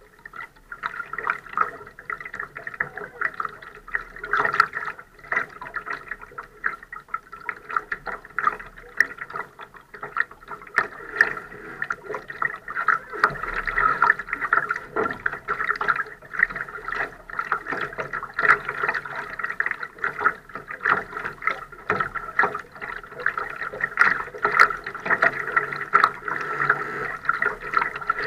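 Small waves lapping and slapping against a Laser dinghy's hull as it sails, an irregular run of quick splashy knocks over a steady watery wash.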